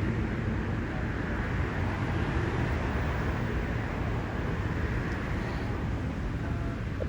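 Steady street traffic noise: a continuous rumble of passing cars.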